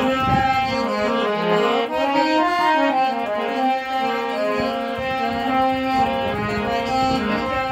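Harmonium playing: a reed melody moving over sustained chords.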